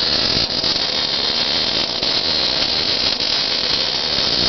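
MIG/MAG welding arc burning steadily as a bead is laid, a continuous crackling hiss.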